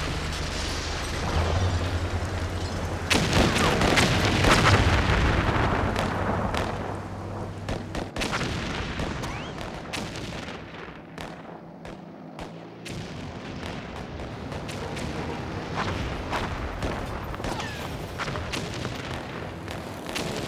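Dense experimental noise soundtrack: a mass of crackles and bangs over a low steady hum. It is loudest a few seconds in, and the hum stops about eight seconds in, leaving a thinner crackling noise.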